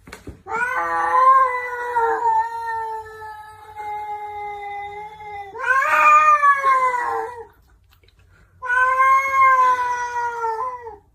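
A cat yowling in three long, drawn-out wails; the first lasts about five seconds and the last comes after a short pause.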